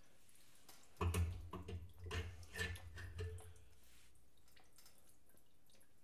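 Light clicks and handling noises, with gasoline dripping, as the carburetor is worked off a 196cc Honda-clone engine. They start about a second in and die away after a couple of seconds.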